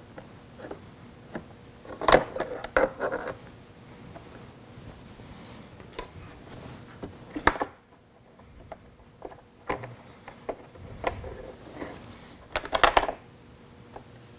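A Can-Am Spyder RT's plastic dashboard being worked loose by hand, its wiring connectors unplugged: scattered clicks, knocks and rubbing of plastic parts. The busiest stretches are about two seconds in and near the end, with a single sharp click about halfway through.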